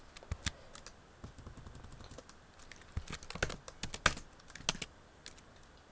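Scattered keystrokes on a computer keyboard: short sharp clicks in small irregular clusters with pauses between, the busiest about three to four seconds in.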